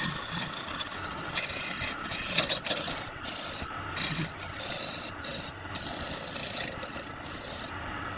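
A tool scraping and rubbing against wood spinning on a wood lathe: an uneven rasping over the lathe's steady running hum.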